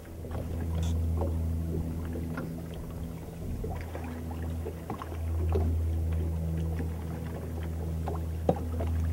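Electric bow-mounted trolling motor humming steadily, fading out about three and a half seconds in and starting again a second or so later. Scattered light clicks and knocks from the boat, with one sharp knock near the end.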